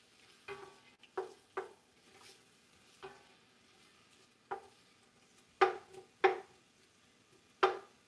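Wooden spatula scraping and knocking against a metal saucepan while sliced onions are stirred in olive oil, about eight strokes that get louder toward the end. A faint sizzle of the onions frying lies underneath.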